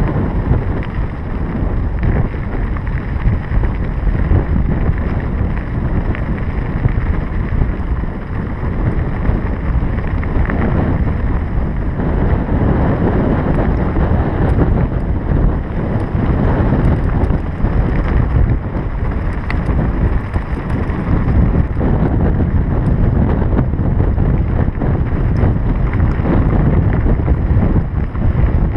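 Wind buffeting the microphone while riding a Scott Scale 970 mountain bike along a dirt road, with the tyres rumbling and crackling over the loose gravel surface.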